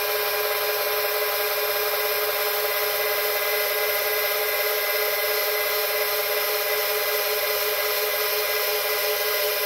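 Two electric linear actuators extending together, their small motors and gearboxes running with a steady, even whine.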